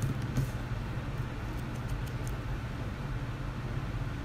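Steady low background hum, with a few faint light clicks in the first half.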